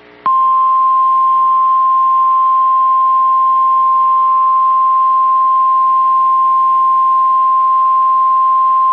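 NOAA Weather Radio warning alarm tone: a single steady, loud 1050 Hz tone that starts a moment in and holds unbroken. It is sent here as the weekly test of the signal that automatically activates weather-alert receivers.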